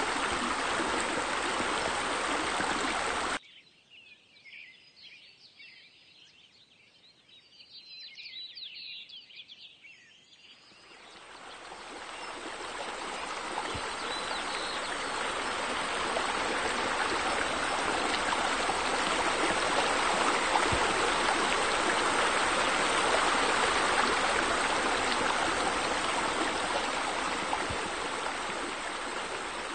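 Steady rush of running water, like a stream or waterfall, that cuts off abruptly about three seconds in. For several seconds only faint high bird chirps remain, then the water fades back in and runs on steadily.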